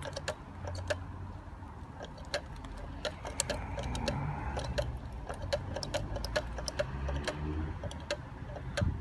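A Master Lock key safe's code being entered: a run of sharp, irregular mechanical clicks, two or three a second, from its code mechanism being worked by hand.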